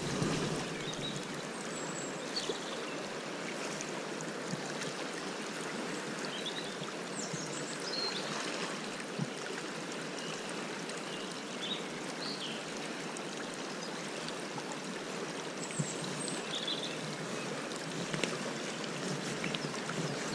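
The River Tay running high: a steady rush of flowing water, with a few short high chirps scattered through it.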